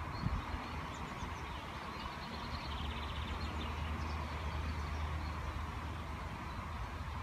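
Outdoor ambience: a steady low rumble that swells a little in the middle, under a soft rushing noise, with a few faint high bird chirps about a second in.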